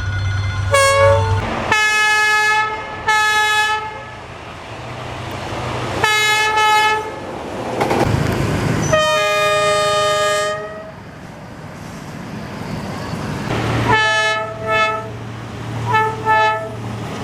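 Locomotive horn sounding a series of blasts: a few short toots, then one long blast of about two seconds in the middle, then three quick toots near the end. A low steady engine hum sits under the first and last blasts.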